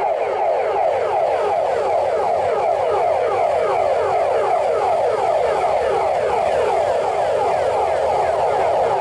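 Electronic sirens on a column of passing police motorcycles sounding a fast yelp: a rapid, evenly repeating pitch sweep, several times a second, held steady.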